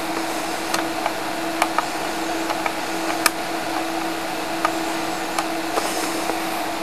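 Steady background hiss with a low, steady hum and scattered faint clicks.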